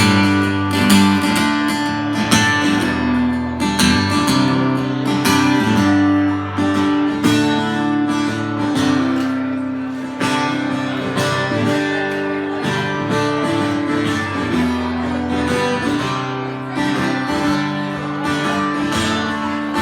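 Acoustic guitar played live, strumming and picking chords in a song's instrumental intro.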